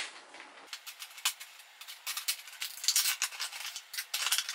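Plastic packaging of a cheap calligraphy pen being opened by hand: a dense run of small crinkles, clicks and rattles that gets busier about a second in.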